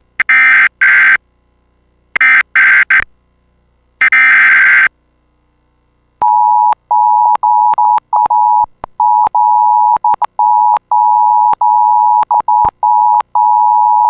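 Emergency Alert System tones for a severe thunderstorm warning. First come three short bursts of screeching SAME digital header data. Then, about six seconds in, the steady two-tone 853/960 Hz attention signal starts, broken by frequent short dropouts and clicks.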